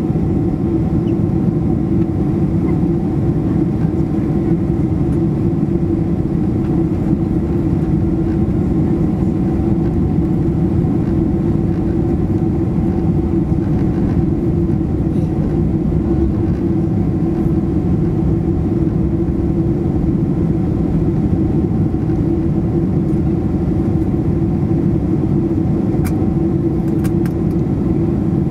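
Steady cabin noise inside a Boeing 767-300ER on approach with flaps extended: a constant low drone of engines and airflow, with an even hum running through it.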